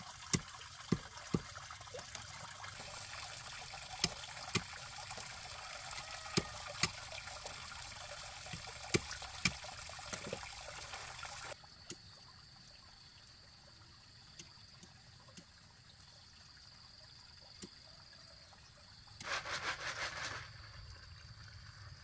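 Water trickling, with a dozen or so sharp clicks and knocks over it. About halfway through it changes abruptly to a quieter stretch with a faint steady high tone, and near the end there is a brief louder rustling noise.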